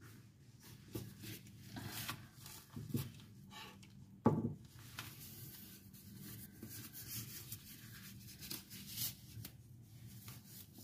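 Thin disposable plastic glove rustling and crinkling as it is pulled onto a hand, with one sharp tap about four seconds in.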